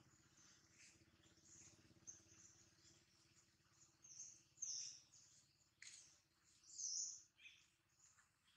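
Faint, high chirping of small birds, several short calls, the loudest a little after halfway and again about two-thirds in, over a faint steady low hum.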